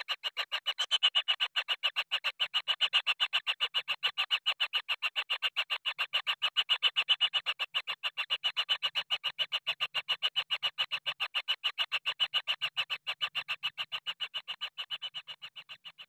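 Kingfisher nestlings in an earthen burrow nest giving a continuous begging churr: a rapid, even pulsing that runs without a break and fades near the end.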